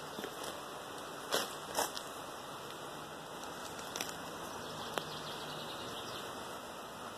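Steady background hiss with a few short, faint clicks: two close together about a second and a half in, and single ones near four and five seconds.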